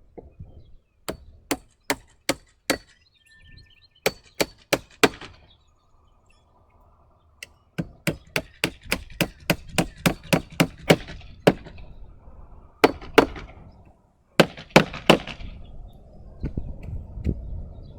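Hammer blows driving nails into wood, in short runs of sharp strikes with pauses between. The longest run comes in the middle, at about three to four blows a second.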